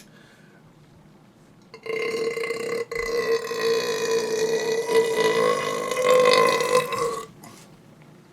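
A man's long, loud burp lasting about five seconds, starting about two seconds in, held at a steady pitch with a brief break near the start.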